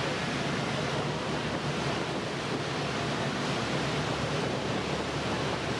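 Strong wind buffeting the microphone over the rush of the sea around a boat under way, a steady noise with a low hum beneath it.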